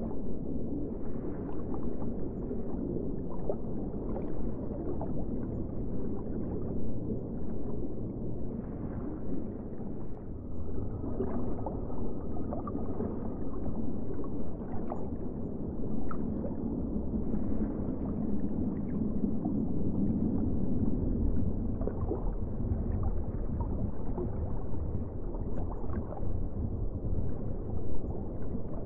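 Muffled underwater ambience: a low, steady rumble of water with faint scattered bubbling and gurgling.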